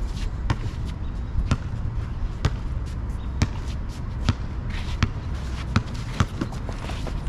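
Basketball being dribbled on an outdoor asphalt court, sharp bounces about once a second.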